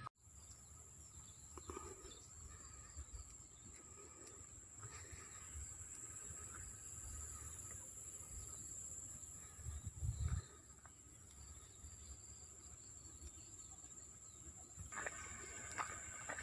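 Faint, steady high-pitched chirring of insects, with a short low thump about ten seconds in.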